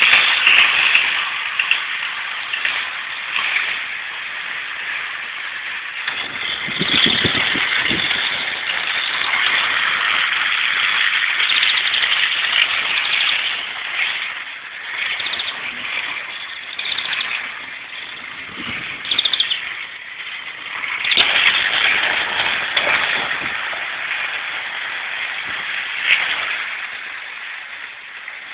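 Hornby model trains running past close by, a rattling whir of wheels on track and small motors that swells and fades as the coaches go by.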